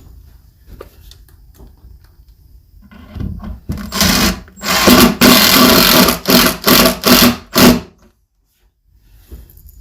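Cordless drill driving screws into a plywood cabinet box. It starts in short bursts about three seconds in, runs for about a second and a half, then gives four quick bursts before stopping.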